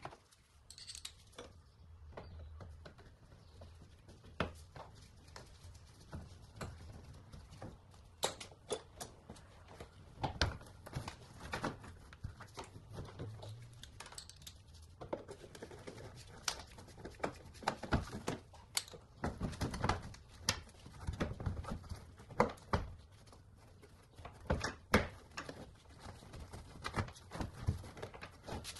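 Irregular clicks, taps and knocks of a screwdriver and gloved hands working on the plastic wheel-arch liner and its Torx bolts in an Audi A3's front wheel well. The knocks come thicker from about ten seconds in.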